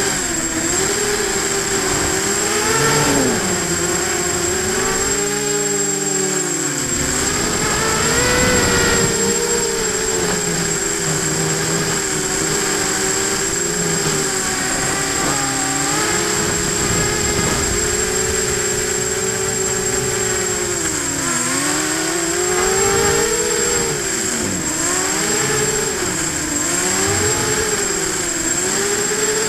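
Electric motors and propellers of an FPV hexacopter, heard from its own onboard camera: a steady whine whose pitch rises and falls continually as the throttle changes, with a deeper dip about six seconds in and again near twenty-one seconds.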